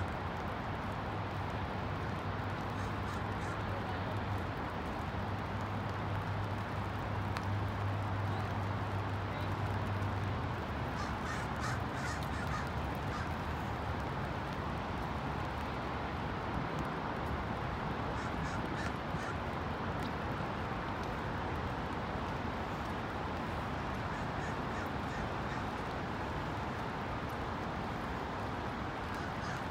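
Steady rain falling, with a bird calling in two short runs of repeated calls, about twelve and nineteen seconds in. A low steady hum stops about ten seconds in.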